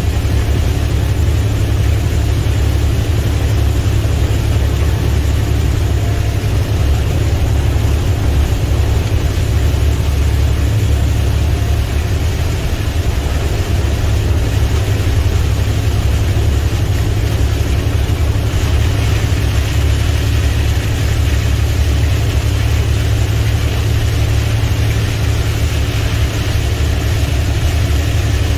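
Steady low in-cab drone of an International semi truck's MaxxForce 13 diesel engine cruising at highway speed. A steady hiss of rain and tyres on the wet road sits over it and grows a little louder past the middle.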